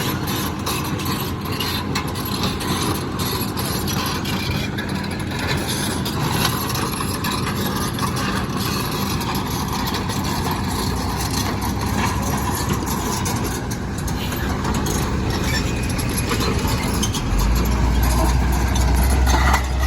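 Heavy diesel engine running steadily, with a deeper, louder rumble setting in near the end.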